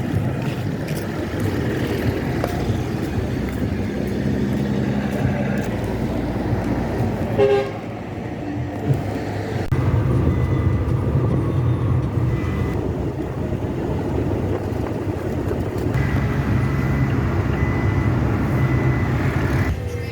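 Vehicle running with steady road noise, and a short horn toot about seven and a half seconds in.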